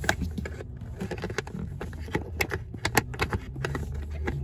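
Small irregular clicks and taps of metal tweezers prodding at the stuck release latch of a fourth-generation Toyota 4Runner glove box, with light handling rustle over a low steady hum.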